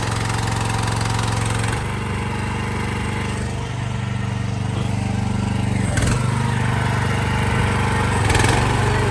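Mini excavator's small engine running steadily, its note shifting about two seconds in. There is a sharp knock about six seconds in and another near the end.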